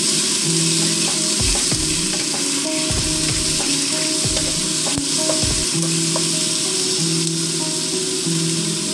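Food sizzling and frying in a pan while a wooden spatula stirs it, with a steady high hiss of frying throughout.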